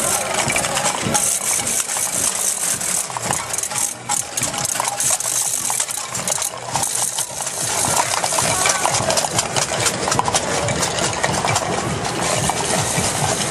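Continuous metallic jingling and rattling over a steady noisy din as a costumed carnival parade passes.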